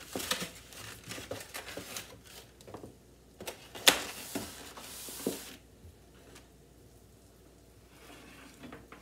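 Sweater fabric brushing and rubbing against the camera microphone, a crinkly rustling with scattered clicks and one sharp knock about four seconds in; it quiets down after about five and a half seconds.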